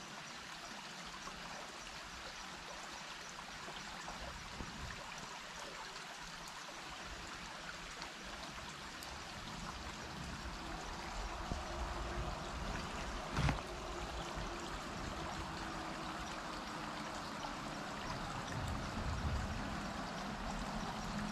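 Small woodland stream flowing steadily, a little louder near the end, with one brief knock about halfway through.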